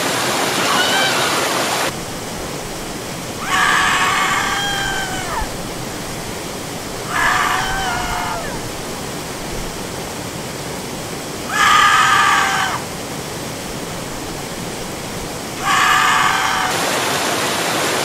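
A person's high screams ring out four times, each a second or two long, some falling in pitch at the end, over the steady rush of a waterfall.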